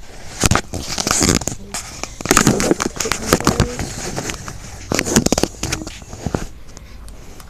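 Handling noise from a handheld phone being moved about: a busy, irregular run of knocks, clicks and rustles, loudest about half a second, two and a half and five seconds in.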